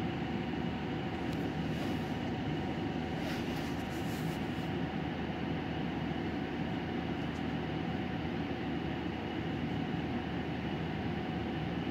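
Inside a Nagoya city bus under way: a steady run of engine and road noise, with a few brief light rattles in the first few seconds.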